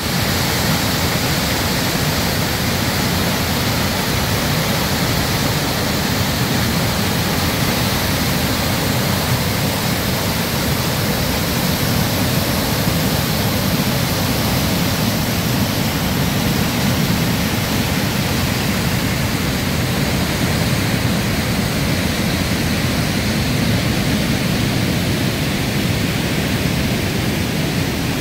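Waterfalls and white-water rapids rushing through a rock canyon: a loud, even rush of water with no breaks.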